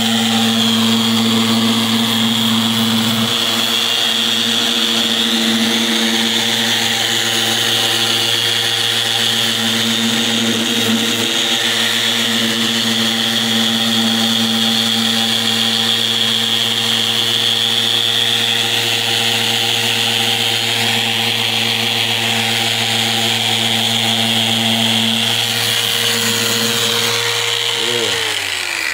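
Festool random orbital sander running steadily as its pad works over a painted wooden door, taking the paint down to bare wood: a constant hum with a hiss over it. Near the end it is switched off and its pitch falls as it winds down.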